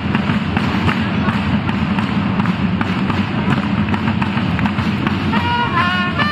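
A corps of marching drums beating a fast, steady rhythm. A trumpet comes in with held notes near the end.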